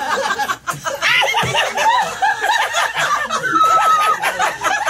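Several people laughing hard together, with overlapping giggles and cackles.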